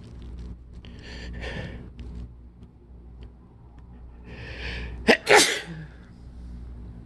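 A person sneezing harshly during an allergy sneezing fit. There are breathy hissing catches of breath about a second in and again near four seconds, then one loud sneeze just after five seconds in.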